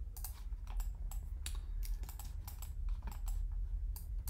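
Irregular clicks and taps of a computer keyboard and mouse, a dozen or more scattered unevenly, over a steady low hum.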